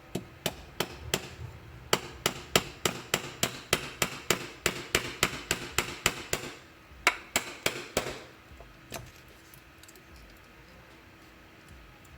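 The small hammer head of a Roxon H1 multitool striking repeatedly, about three to four sharp blows a second with a short ring after each. It pauses briefly near 1.5 s and again after 6.5 s, a few more blows come about 7 s in, and a last single one near 9 s.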